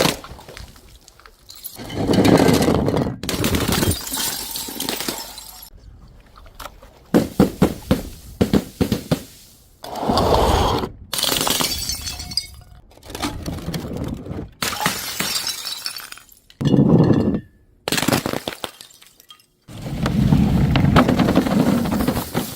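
Glass bottles and jars breaking: a string of separate crashes with shattering, tinkling glass, cut one after another. About a third of the way in comes a quick run of sharp cracks.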